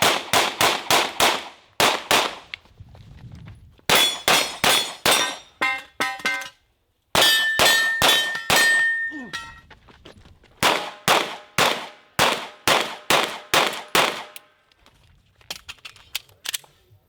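Strings of rapid pistol shots, several a second with short pauses between strings. Struck steel targets ring with a clear metallic tone through the middle of the run.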